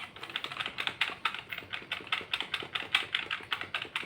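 Computer keyboard key tapped rapidly over and over, a fast even run of clicks: the usual way of getting into the BIOS as a PC powers on.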